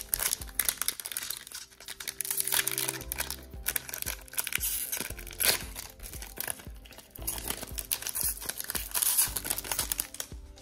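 Foil Pokémon booster pack wrapper being torn open and crinkled by hand, a crackling rustle in repeated bursts.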